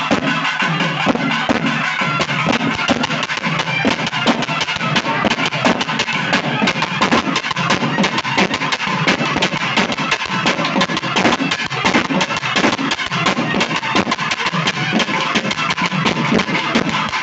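Music with fast, continuous drumming: many quick strokes a second at a steady level.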